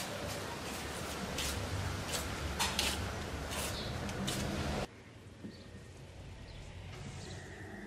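Outdoor background noise picked up by a handheld camera, with scattered short clicks and knocks. About five seconds in it cuts off abruptly to quieter outdoor ambience with a few faint high chirps.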